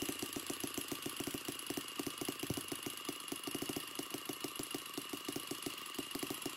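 Small single-cylinder model six-cycle engine running on its own with a fast, even beat, now firing on its original spark plug.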